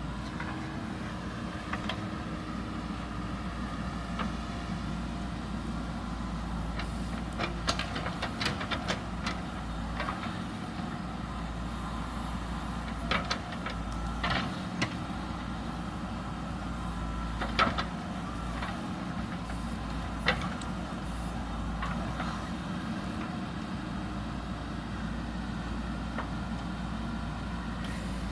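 A JCB backhoe loader's diesel engine running steadily as the machine works, with scattered sharp knocks and clanks, several of them between about a quarter and three quarters of the way through.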